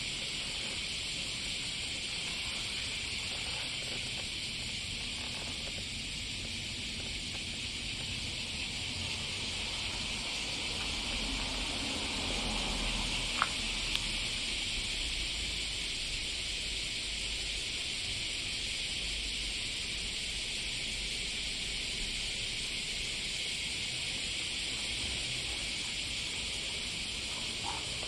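Steady high-pitched hiss, with two light clicks about halfway through.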